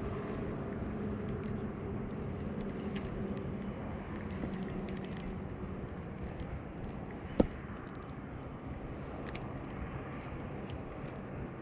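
Spinning reel being cranked steadily during a lure retrieve, a low whir with faint ticks, and one sharp click about seven seconds in.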